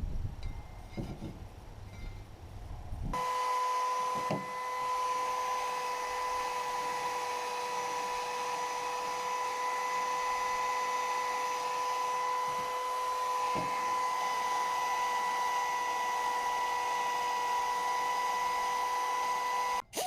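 A steady electronic beep tone, one unchanging pitch, starts abruptly about three seconds in and holds evenly for about seventeen seconds before cutting off just before the end. Before it there is low rumbling handling noise with a few faint ticks.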